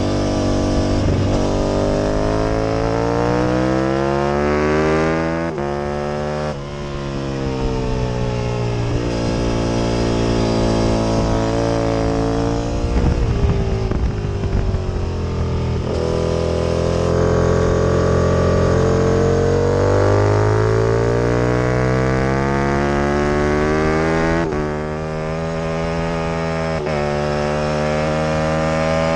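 Aprilia RSV Mille V-twin racing motorcycle engine at full throttle, the pitch climbing and dropping sharply at each upshift, about five seconds in and again near the end. About halfway through the revs fall away with some crackle as the bike slows for a corner, then climb again as it accelerates out.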